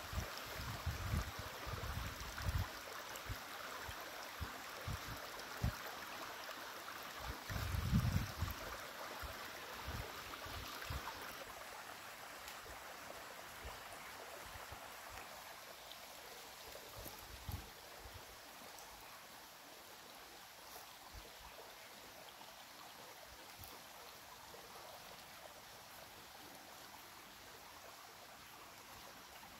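Steady rushing outdoor background noise, with dull low bumps on the microphone through the first ten seconds or so; the noise fades after about eleven seconds.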